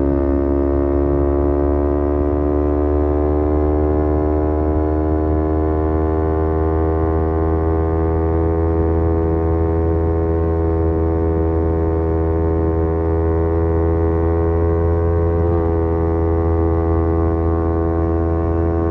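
Kawasaki Z250 parallel-twin engine through a SeaPro aftermarket muffler, pulling steadily at cruising speed, its pitch climbing slowly over the first several seconds and then holding. There is a brief wobble in the pitch about three-quarters of the way through.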